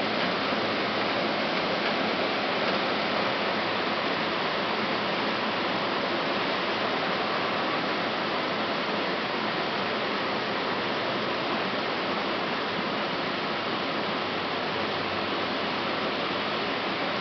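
Heavy rain pouring down in an even, steady hiss.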